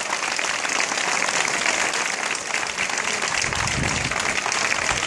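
Crowd applauding, many hands clapping at once in a steady dense patter; a low rumble joins about three and a half seconds in.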